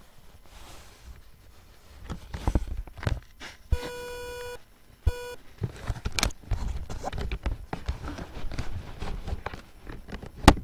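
Handling noise from a camera being moved and rubbed about, with scrapes, low rumbles and knocks, and a sharp click near the end. About four seconds in an electronic beep sounds for just under a second, with a short second beep about a second later.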